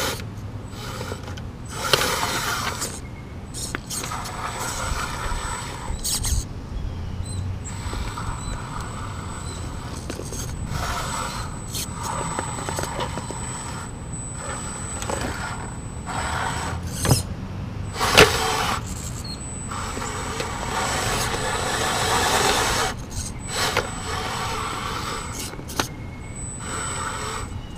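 Electric RC rock crawler creeping over rocks in stop-start bursts: its motor and gear reduction unit whine as the throttle is worked, with the tyres scraping and a few sharp clicks on the stone.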